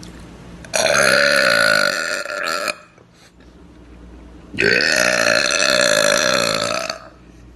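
A woman letting out two long, loud burps, each lasting about two seconds, the first about a second in and the second about four and a half seconds in.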